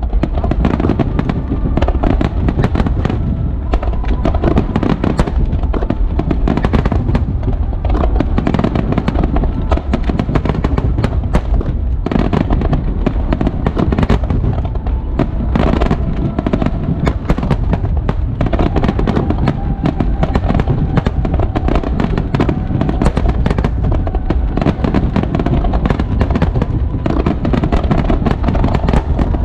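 Aerial fireworks bursting in a rapid barrage, many overlapping bangs and crackles one after another without a break.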